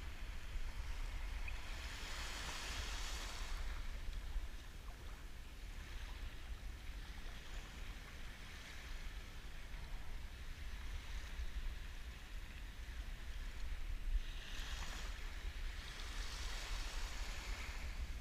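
Small waves washing around the legs in knee-deep shallow water, swelling into louder hissy washes about two seconds in and twice near the end, over a steady low wind rumble on the microphone.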